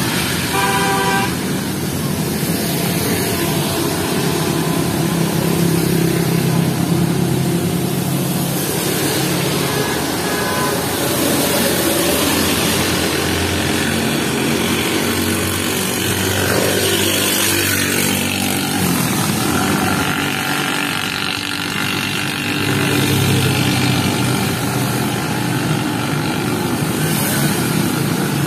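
Road traffic in the rain: motorcycle and car engines passing, with the steady hiss of rain and tyres on wet tarmac. A short vehicle horn beeps about a second in.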